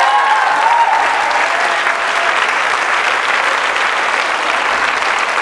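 Audience applauding steadily in answer to a speaker's question, with a few voices calling out in the first second.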